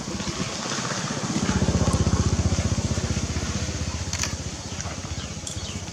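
A small engine passing by: a rapid low pulsing that swells about a second and a half in and then fades. A couple of sharp clicks come near the end.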